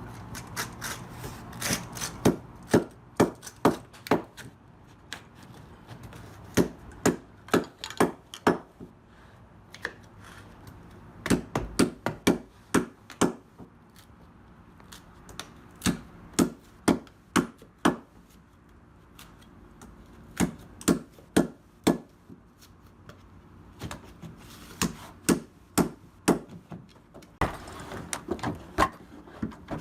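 Carpet-laying tool work: sharp knocks in clusters of several, a few a second, with short pauses between clusters.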